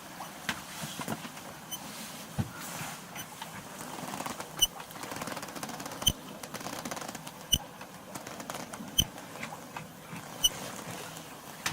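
A sharp metallic clink repeating at an even pace, about every one and a half seconds, from a few seconds in, over small creaks and rattles aboard a sailing boat under way.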